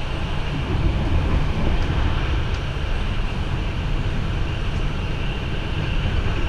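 Steady running noise of an SBB Interregio passenger train at speed, heard inside the carriage: a low rumble of wheels on rails with an even hiss over it.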